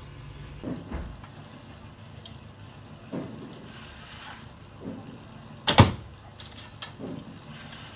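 A single arrow shot from a Dacian-style bow: the bowstring is released once, about three-quarters of the way through, with one sharp snap that is the loudest sound here. A few softer, short sounds come before and after it.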